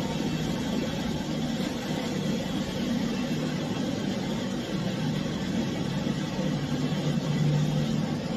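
Pet grooming dryer's blower motor running steadily.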